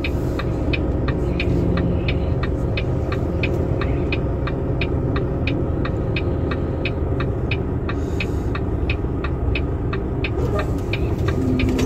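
Semi-truck diesel engine idling, heard inside the cab as a steady low rumble. An even ticking, about three clicks a second, runs over it.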